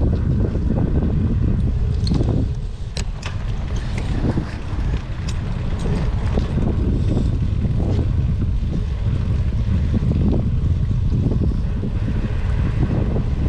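Wind noise on the microphone of a camera on a moving bicycle's handlebars, mixed with tyres running on wet pavement, and a few sharp clicks about three and five seconds in.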